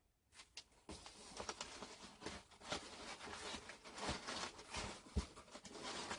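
Packing paper rustling and crinkling as it is handled and pulled out of a cardboard shipping box, with scattered small knocks from the box. It starts about a second in.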